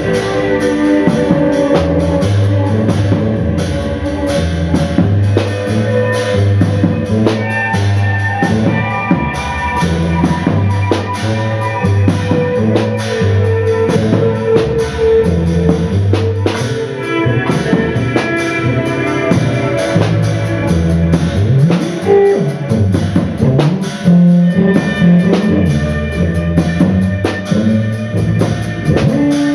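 Live instrumental music by a small band: a drum kit playing busily over a low bass line that moves in held, stepping notes, with guitar.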